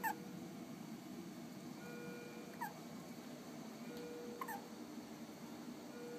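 Premature newborn baby hiccuping three times, about every two seconds, each hiccup a short, sharp little squeak falling in pitch.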